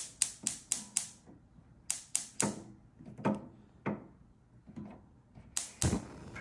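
About a dozen sharp clicks and knocks at irregular spacing, typical of hands handling hard hardware. Five come in quick succession in the first second. Scattered knocks follow, with a quieter stretch in the second half, then two loud knocks near the end.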